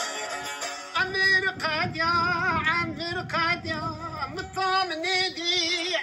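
Arabic-language song: after about a second of instrumental accompaniment, a solo voice comes in singing wavering, ornamented lines over the music.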